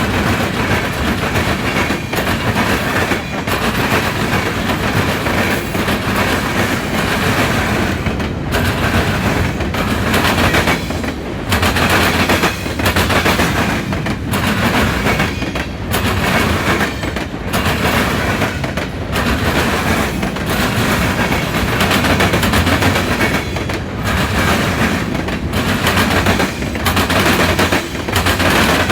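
Freight train cars rolling past, their wheels hammering over a railroad crossing diamond in a loud, rapid, continuous clatter of bangs.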